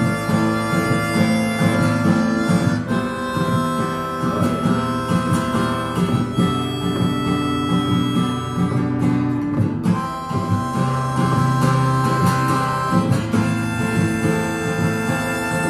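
Harmonica, cupped in both hands, playing long held notes over an acoustic guitar accompaniment.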